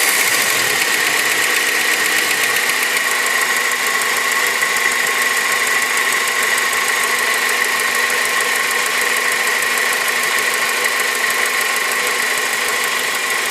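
Honda K20 inline-four engine idling steadily, with a fast, even ticking running through the sound of the engine.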